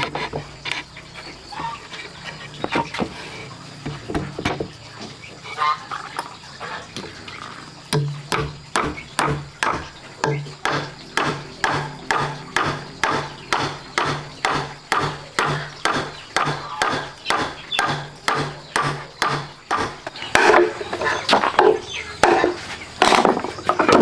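Hammer driving a nail into a wooden board with a long run of steady blows, about two or three a second, each a sharp knock with a short woody ring. Scattered lighter knocks come before the run, and louder irregular knocks of wood follow near the end.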